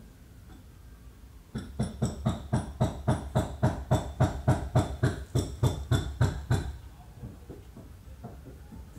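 A rapid, even series of knocks, about three a second for some five seconds, each with a slight high ring, starting about a second and a half in, over a low steady hum.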